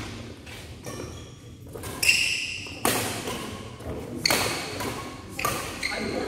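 Badminton rally: racket strings striking the shuttlecock, sharp pops about one to one and a half seconds apart, ringing after them in the hall. A high squeak comes with the hit about two seconds in.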